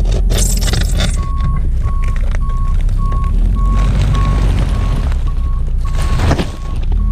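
Backup alarm of a reversing machine beeping at a steady single pitch, about one and a half to two beeps a second, over a running engine's low rumble. A burst of clattering knocks sits in the first second.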